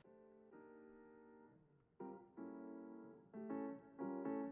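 Soft background piano music: quiet sustained chords that grow louder about two seconds in, with new chords struck every half second or so.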